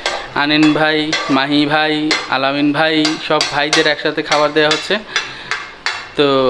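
Dishes and cutlery clinking again and again, with voices behind.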